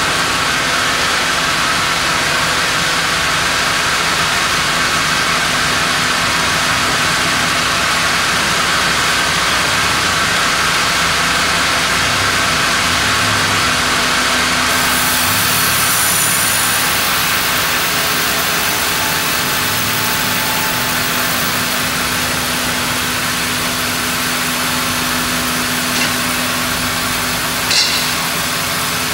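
Band sawmill running steadily while it saws a monkeypod (rain tree) log. A brighter hiss comes in about halfway through, and there is a short clank near the end.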